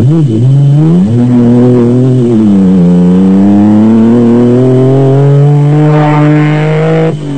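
Engine of a Mitsubishi Pajero off-road race car running hard as it drives past. The engine note dips and climbs, then rises steadily for the last few seconds before cutting off abruptly near the end.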